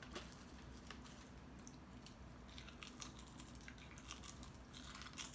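Faint eating sounds: scattered soft clicks and crinkles of a person biting and chewing a sheet of seasoned laver (gim).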